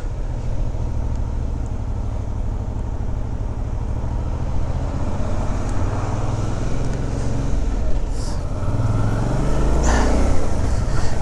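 Suzuki V-Strom motorcycle engine running as it is ridden slowly through town streets, heard from the rider's seat along with road and wind noise, the engine note rising a little as it picks up speed in the last few seconds.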